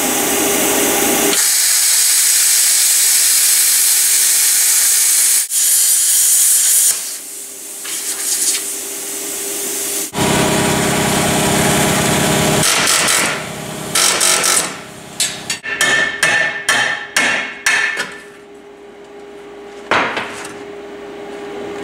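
Hand-held plasma cutter hissing and crackling as it cuts through the head of a seized eccentric bolt on the lower control arm mount, in two long cuts. Then come sharp metal clanks and knocks as a pry bar works the arm loose, over a faint steady hum.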